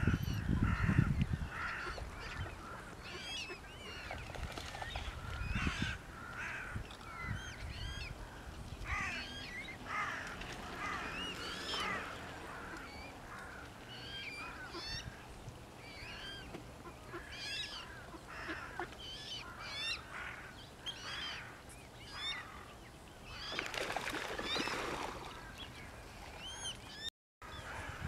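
Mute swan cygnets peeping: a continuous stream of thin, high chirping calls from the brood. A few harsher calls are mixed in, and the sound briefly cuts out near the end.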